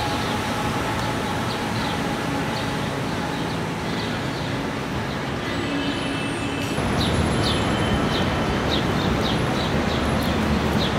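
City traffic noise, a steady roar of passing vehicles, with short high chirps of small birds repeating over it; the low rumble grows louder about seven seconds in.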